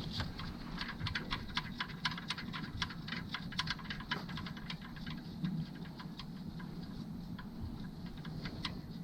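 Quick, irregular metallic clicking from hand tools working a bolt on the engine's front accessories, dense for the first few seconds and then sparser.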